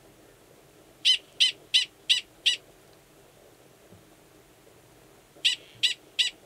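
Male Gunnison's prairie dog giving a mating call, which sounds the same as its alarm call: a run of five short, high calls at about three a second, then after a pause of nearly three seconds, another run of short calls starts near the end. The call is the male's signal before he goes below ground to mate with an estrous female.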